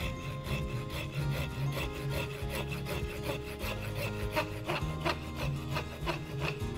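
ARS hand pruning saw cutting through a branch stub of a Korean hornbeam bonsai: steady back-and-forth rasping strokes of the toothed blade through the wood, evenly repeated throughout.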